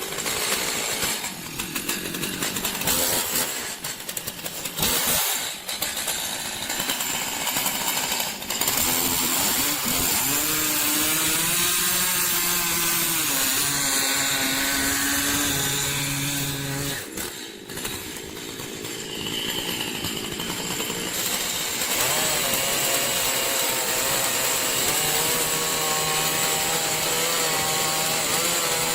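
Chainsaw running and cutting through wood, its engine pitch rising and falling as it revs under load. It breaks off abruptly twice, about 5 and 17 seconds in.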